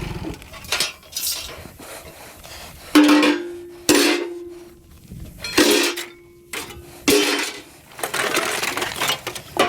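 An idling engine cuts off right at the start. Then pieces of scrap metal are tossed and dropped onto a pile in a series of about eight clanks, several of them ringing on for about a second.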